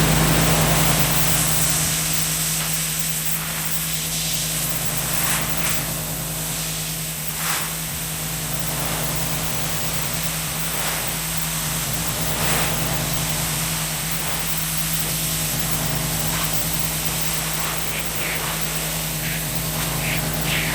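Pressure washer running steadily with a constant hum, its high-pressure water jet hissing and spraying against the car's moss-crusted body, the spray sound shifting as the wand sweeps.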